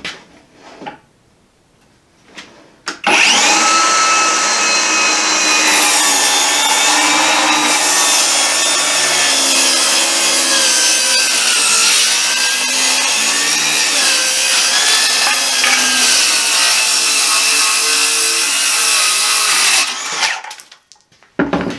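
Hercules brushless cordless 7-1/4 inch circular saw with a Diablo 24-tooth framing blade starting up about three seconds in and rip-cutting along the grain of a maple board for about seventeen seconds, its motor pitch wavering slightly under load. It is released and spins down near the end.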